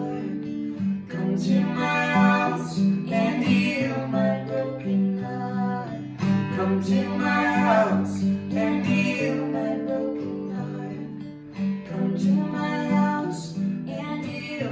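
Acoustic guitar strummed in a steady song accompaniment, chords changing every second or so, with a singing voice coming in at moments.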